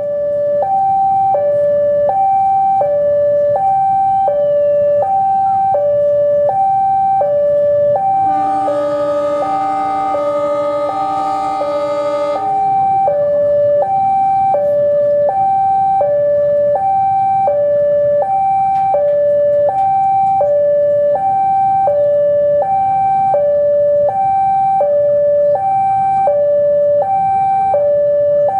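Electronic two-tone railway level-crossing warning alarm, alternating high and low about once a second throughout. About eight seconds in, the CC 203 diesel locomotive sounds one long horn blast of about four seconds over it, with its engine rumbling low underneath.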